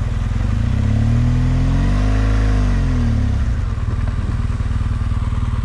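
BMW R1200GS Adventure's flat-twin boxer engine as the bike pulls up to stop: its note rises and falls once, then settles to a steady low idle from about halfway in.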